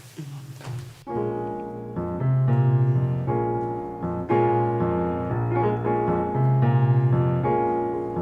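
A live Latin band starts a boogaloo about a second in, led by repeated piano chords over low held bass notes.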